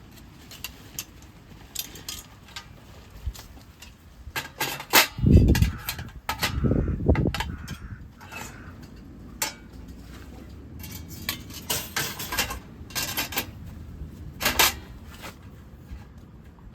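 Clinking and clattering of camp cookware or metal gear being handled: scattered short clinks, with a few heavier knocks about five to seven seconds in.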